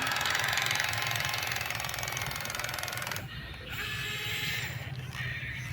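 Small electric gear motors of a toy remote-control excavator whirring with a fast, gritty gear buzz, which stops about three seconds in and comes back briefly about a second later.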